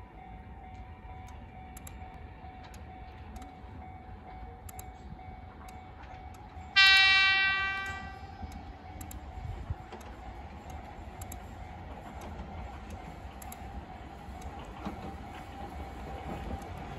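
A distant Chikuho Electric Railway Type 2000 train approaching, heard as a low steady rumble that grows slightly near the end. About seven seconds in, a single loud ringing tone starts suddenly and dies away over about a second.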